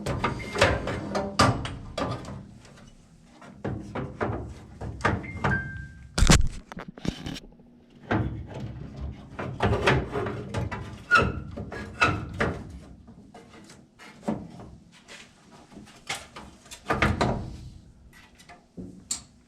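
Irregular knocks, clunks and rattles of tools and metal parts being handled, over a faint steady hum.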